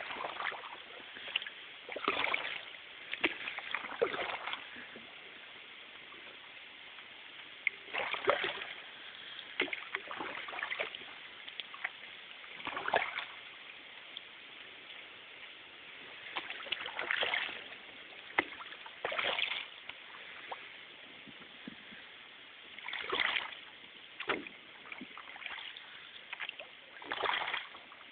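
Canoe paddle strokes in calm water: a swish and splash every two to four seconds, with a few short, sharp clicks between strokes.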